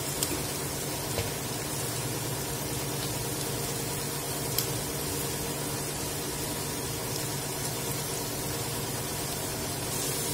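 Diced pumpkin peel and onions frying in hot oil in a pot, a steady sizzle, with a steady low hum underneath and a few faint clicks.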